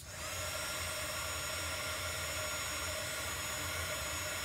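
Small handheld electric craft heat tool blowing air, drying freshly applied chalk paste. It switches on with a click at the start and gives a steady rush of air over a constant motor whine.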